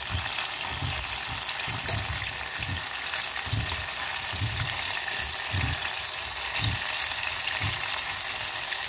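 Batter-coated banana fritters deep-frying in hot vegetable oil in a stainless steel saucepan, the oil sizzling and bubbling with a steady hiss. A soft low thump comes about once a second underneath.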